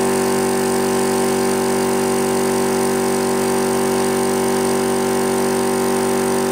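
SGS 100-litre electric air compressor running and pumping up its tank, a loud, steady drone with a strong hum.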